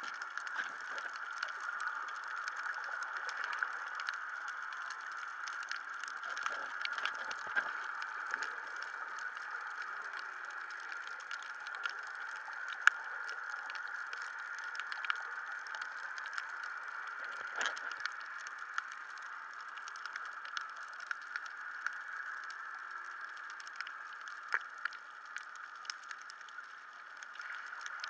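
Underwater reef ambience heard through a camera's waterproof housing: a steady hiss with a dense, irregular crackle of small clicks, and a few sharper clicks standing out.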